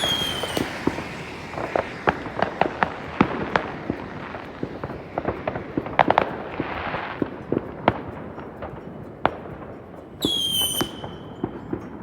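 Fireworks going off: many sharp bangs and cracks scattered throughout. A whistling firework's shrill whistle drops in pitch and then holds, briefly at the very start and again, louder and for over a second, about ten seconds in.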